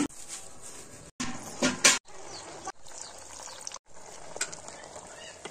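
Water boiling and bubbling in a metal pot of Malabar spinach and pumpkin pieces, heard in short snippets, with a couple of loud knocks or clatters in the first two seconds.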